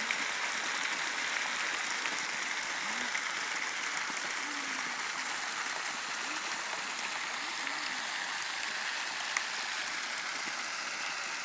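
Pumped well water gushing from a hose into a tub and splashing over its rim, a steady rushing splash. It is the discharge of a well pumping test running at about 4.5 cubic metres an hour.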